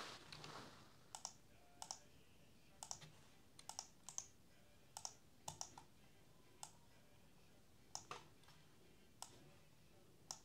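Faint, irregular clicks from a computer keyboard and mouse, many in quick pairs, about one every second.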